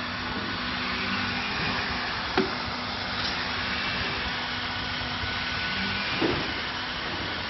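Hot-air gun of an automatic PVC tape welder blowing steadily, a hiss with a low hum under it. Two short knocks, about two and a half seconds in and again about six seconds in.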